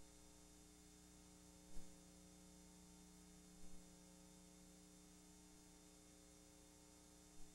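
Near silence: a faint steady electrical hum, with two faint brief sounds about two and three and a half seconds in.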